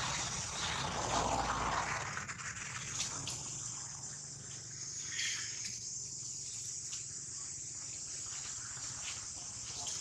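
Outdoor ambience: a steady high hiss, with a rushing noise over the first two seconds, then a few faint scattered clicks and rustles.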